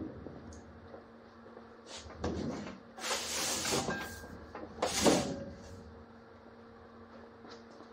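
Thin aluminum sheet being lifted and shifted on a sheet metal brake: several scraping, rattling swishes of the sheet, the loudest about five seconds in, over a steady low hum.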